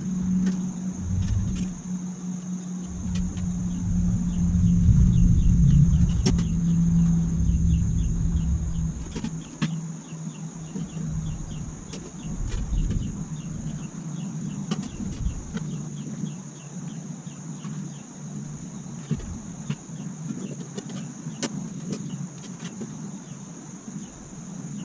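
A motor vehicle's engine rumble with a steady low hum, swelling to its loudest a few seconds in and fading away about a third of the way through. Under it runs a steady high insect buzz with fast chirping in the middle, and a few light clicks come from the thin sheet-metal reflector panels being handled.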